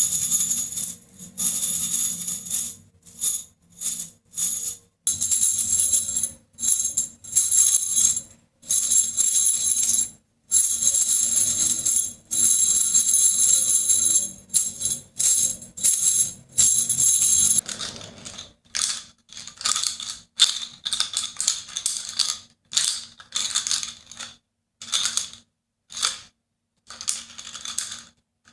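Bangles shaken on a wrist, jingling and clinking together with a bright, ringing high tone, in repeated shakes separated by brief silences. The shakes become shorter and quicker about two-thirds of the way through.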